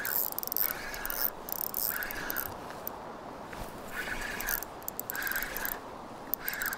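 Spinning reel being cranked against a hooked coho salmon: the reel's gears whir and click in about six short spurts with brief pauses between them.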